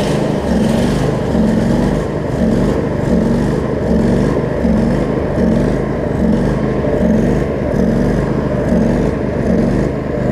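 The 25 hp Briggs & Stratton V-twin engine of a Craftsman DLT riding mower running steadily, with a regular pulse in its note about every two-thirds of a second.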